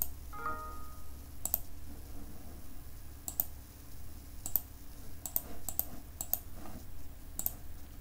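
Computer mouse clicking about ten times at irregular intervals over a low steady hum, with a brief tone of several pitches about half a second in.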